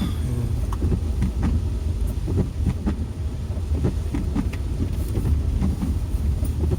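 Car driving along a road, heard from inside the cabin: a steady low rumble of engine and tyres, with scattered light ticks and knocks.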